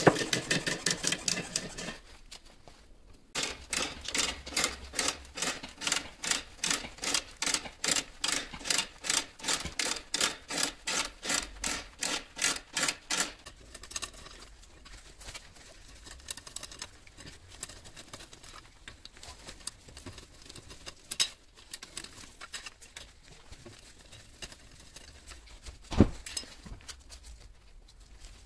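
Ratchet handle cranking a scissor jack to lift a car, clicking in a steady rhythm of about three strokes a second, then stopping about halfway through. Quieter wheel-nut work follows, with a few sharp clicks and one loud knock near the end.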